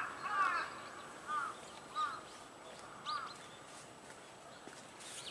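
Crow cawing: a quick run of caws at the start, then three single caws spaced about a second apart, the last about three seconds in.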